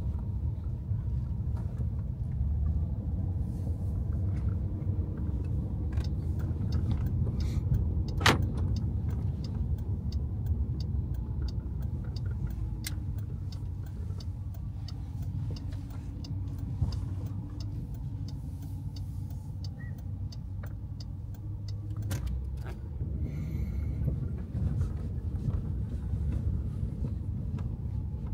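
Car engine and tyre noise heard from inside the cabin while driving at low speed: a steady low rumble, with scattered light clicks and one sharp click about eight seconds in.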